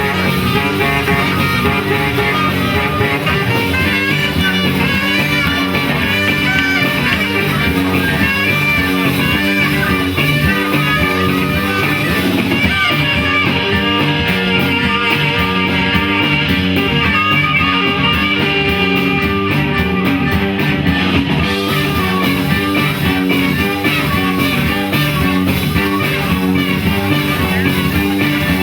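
Live band playing an instrumental number, with guitar to the fore over a steady rhythm.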